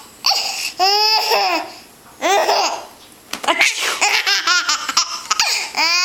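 Baby laughing in several high-pitched bursts with short pauses between them.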